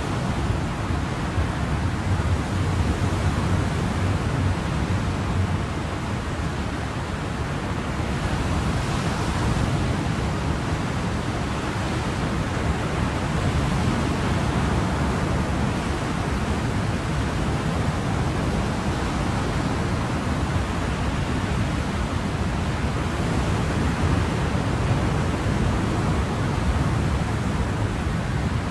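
Ocean surf: a steady, continuous wash of waves, deep and even, with the hiss swelling gently about a third of the way in and again near the end.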